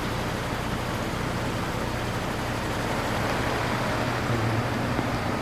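Steady background hiss with a constant low hum, unchanging and without any distinct event.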